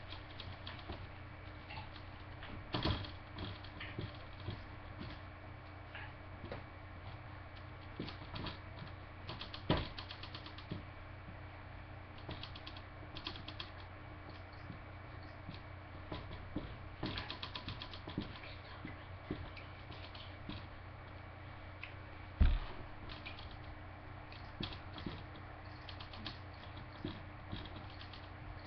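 Dry-erase marker on a whiteboard: short squeaky strokes and taps, some in quick ratchet-like runs of clicks. One much louder thump about three-quarters of the way through, over a faint steady hum.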